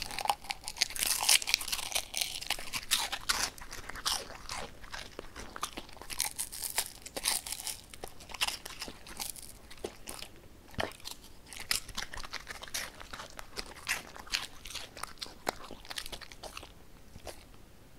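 A Samoyed chewing a capelin, with many sharp, irregular crunches as it bites through the fish. The crunches are densest in the first few seconds and thin out near the end.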